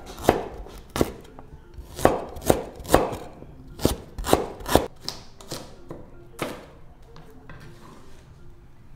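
A Chinese cleaver chopping garlic cloves on a wooden cutting board, about a dozen sharp, irregular knocks. The chopping stops about two-thirds of the way through.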